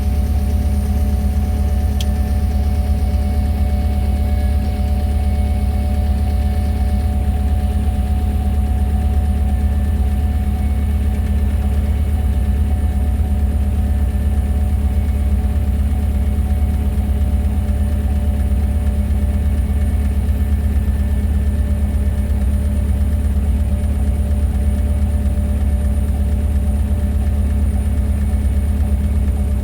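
Steady, loud low engine drone with faint high whining tones held over it, unchanging throughout: idling ramp machinery at an airliner waiting for pushback.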